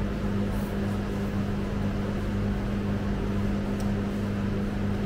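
Steady machine hum with a constant low tone, from a motor, fan or compressor.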